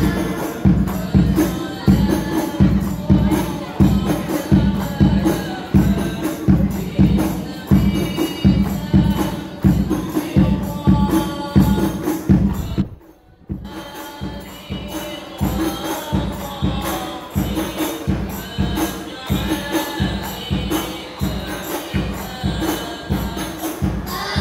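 Group singing of a sholawat over rebana frame drums beating a steady rhythm of about three strokes a second. The sound drops out briefly just past the middle.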